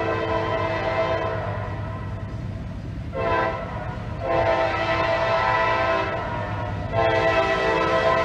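CSX freight locomotive's multi-note air horn blowing for a grade crossing: a long blast, a short blast about three seconds in, then two more long blasts, over a steady low rumble from the approaching train.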